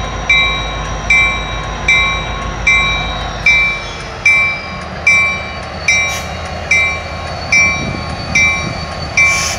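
A bell ringing steadily, a little faster than one strike a second, each strike fading quickly. Beneath it is the low rumble of an ex-Conrail SD60M diesel locomotive rolling slowly past at the head of a track geometry train.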